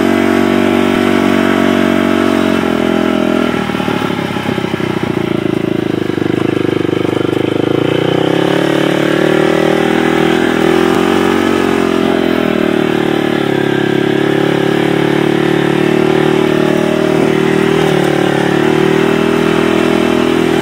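Polaris Predator 500 ATV's single-cylinder four-stroke engine running under way. It eases off about four seconds in, pulls again with rising pitch over the next few seconds, then holds a steady throttle with small swells.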